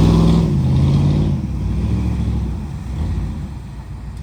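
Pickup truck engine revving under load, loud for about the first second and a half and then easing off and fading.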